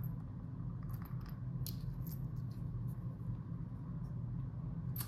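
A few light metallic clicks and taps as small metal parts are handled on an electric scooter's front-wheel axle, over a steady low hum.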